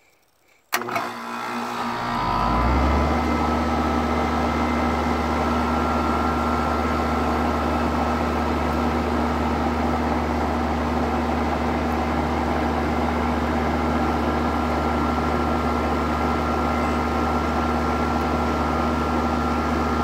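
A 4-ton central air conditioner's outdoor condenser unit kicking on about a second in, its compressor starting with no hard start kit yet connected. It then runs steadily, its low hum swelling over the first two seconds before holding even.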